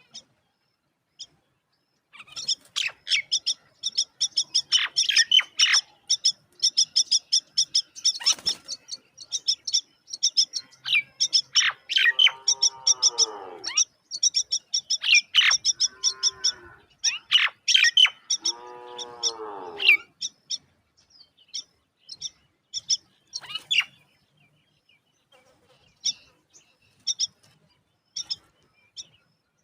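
Myna chicks chirping in rapid, high, repeated calls, with three longer, lower calls in the middle; the chirping thins to scattered calls near the end.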